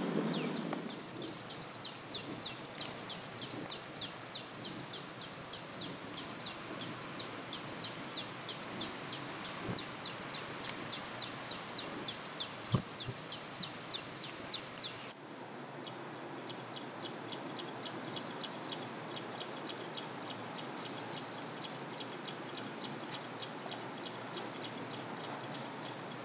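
Outdoor ambience with a repeated animal call, about three short sweeping chirps a second, over a steady background hiss, and one sharp click about thirteen seconds in. About halfway through the sound changes abruptly to a faster, fainter train of even-pitched chirps.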